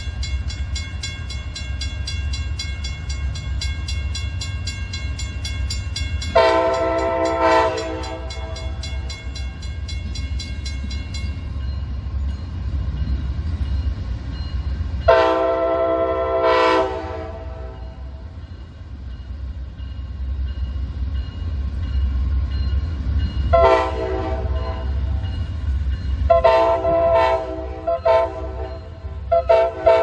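Amtrak GE P42DC locomotive's air horn played as a horn show over the low rumble of the approaching diesel. It sounds in pairs of blasts, a longer one and a short one, about six and fifteen seconds in, then a quicker run of short toots from about 24 seconds on. A bell rings rapidly through the first ten seconds or so, then stops.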